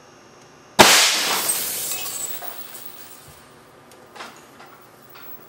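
Fire-extinguisher-tank solenoid-valve air cannon firing a cast lead slug into a CRT TV: one sharp, very loud blast about a second in, then glass of the picture tube shattering and falling, fading away over about two seconds, with a few small clinks later.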